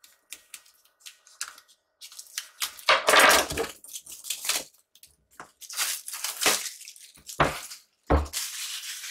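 Cardboard packaging being handled: irregular rustling and scraping of card as the Mac mini's retail box is worked out of its shipping carton, with a couple of dull thumps near the end as it is set down.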